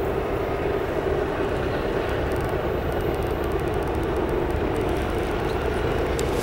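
Steady drone of approaching diesel locomotives, a Kansas City Southern GE AC44CW leading an EMD SD70ACe, heard from a distance down the line.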